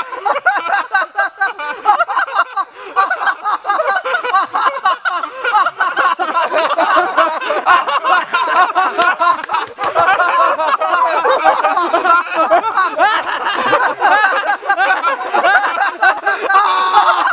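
Several people laughing loudly without a break, a quick run of ha-ha pulses.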